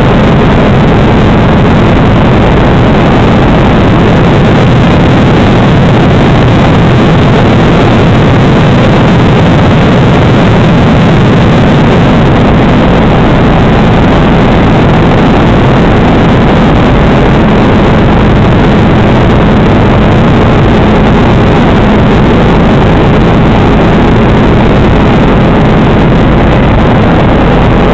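Helicopter engine and main rotor running in level flight, heard from inside the cabin: a loud, steady drone with a low hum running through it.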